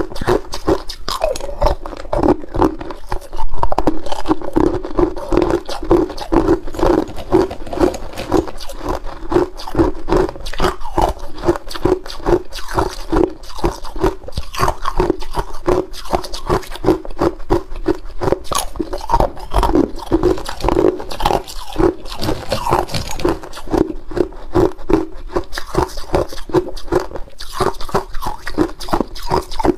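Hard clear ice cubes being bitten and chewed close to the microphone: a continuous run of sharp cracking crunches with a steady chewing rhythm.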